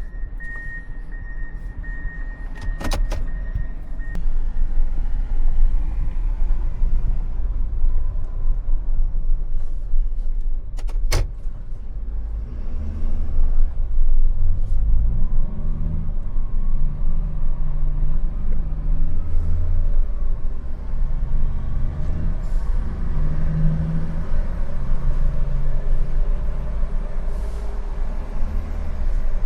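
Truck engine running with road rumble while driving, its pitch shifting as it changes speed. Two sharp knocks, about three and eleven seconds in.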